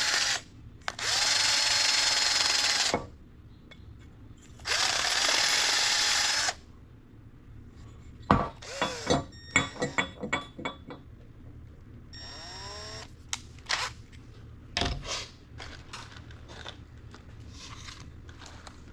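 A drill spinning a small stainless wire brush inside a water pump's shaft hole to scour out old silicone, run in three bursts. Each later burst winds up and then holds a steady whine. After that come scattered clicks and knocks of tools and parts being handled.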